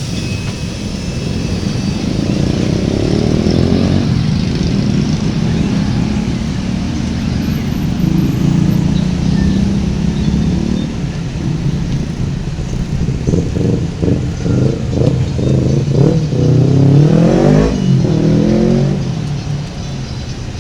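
Motor vehicle engines passing close by in street traffic. One engine rises and falls in pitch as it revs and goes past, loudest about three-quarters of the way through.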